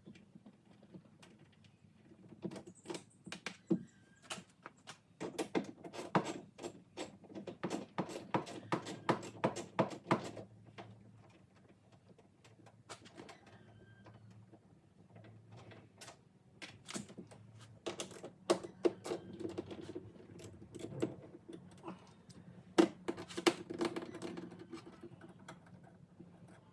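Rapid, irregular clicks and rattles of hand tools and plastic trim being handled while interior panels are taken out of a car, with a dense run of clicks and a quieter spell in the middle.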